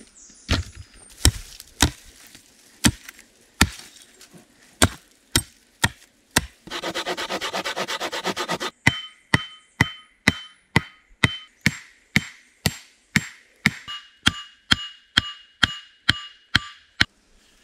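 A tool striking wood in a series of sharp blows, irregular at first, then steady at about two a second, the later blows with a ringing metallic tone. About a third of the way in, the blows give way to about two seconds of quick rasping strokes.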